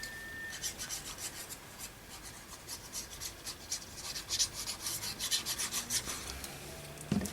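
Glue being rubbed onto a paper hinge: a run of quick, light rubbing strokes on paper, busiest in the second half.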